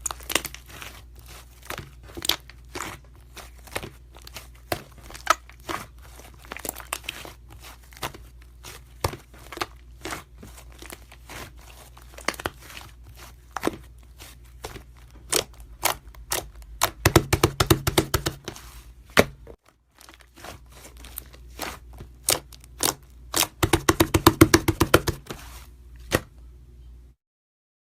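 Slime being pressed and squished by hand, giving sharp popping clicks, with two quick runs of rapid crackling pops; the sound cuts off just before the end.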